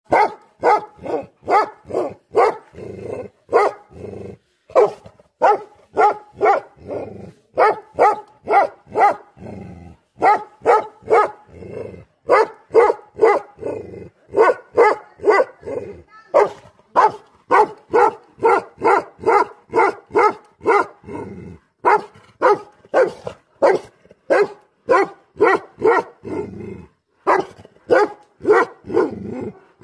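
Tibetan Mastiff barking repeatedly, about two or three barks a second in quick runs broken by brief pauses.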